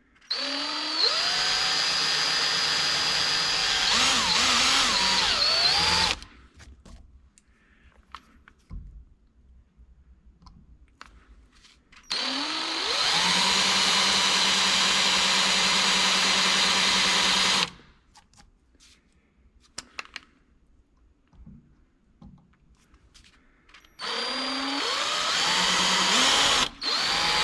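Electric drill with a 3/32-inch bit drilling into the heads of aluminium drive rivets. It runs three times for about five seconds each, whining up to speed at the start of each run, with quiet pauses between.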